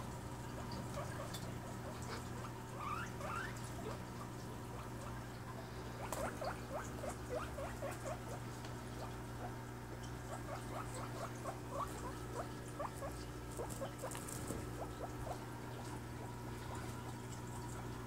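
Guinea pig calling to its cage-mates in quick runs of short rising squeaks, about four a second. There is a brief run about three seconds in, then longer runs about six seconds in and again around ten to thirteen seconds.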